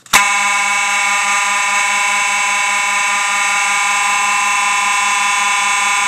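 A sharp click as the manual fire alarm pull station is pulled. Then two Faraday 6226-W mechanical fire alarm horns sound together in a loud, steady, buzzing blare.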